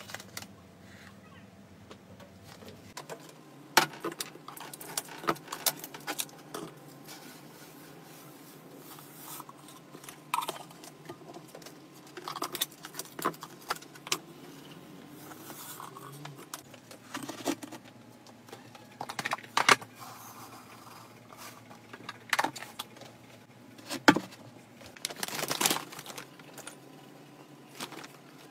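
Scattered clicks, knocks and rustles of clear plastic containers being handled, with bathing sand poured from a canister into a plastic hamster cage. There is a longer rustling pour near the end.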